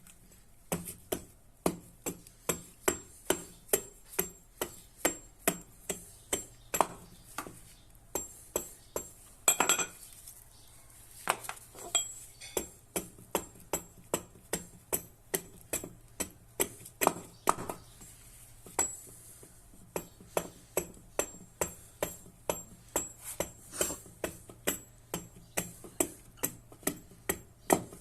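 Hammer blows on metal in a steady rhythm of about two strikes a second, with a couple of short pauses, as a rusty old tool is worked on.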